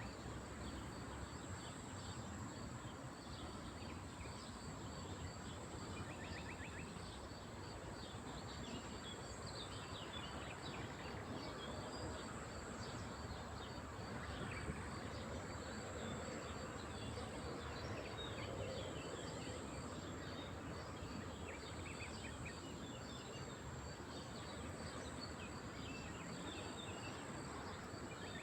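Lakeside ambience: a steady background hiss with a continuous high insect-like buzz, and scattered short chirps of small birds.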